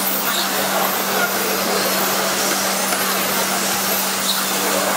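Electric 1/10-scale RC touring cars racing around the circuit: a steady wash of motor and tyre noise with faint high, shifting motor whines, over a constant low hum.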